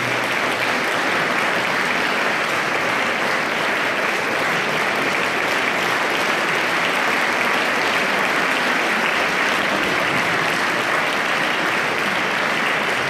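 Audience in a concert hall applauding, steady sustained clapping.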